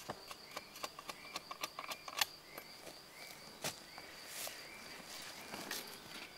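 A hooked billhook blade striking and shaving a wooden stick in irregular sharp clicks, the stick being stripped clean of twigs and thorns. Behind it, a steady high insect buzz and a short chirp repeating about twice a second.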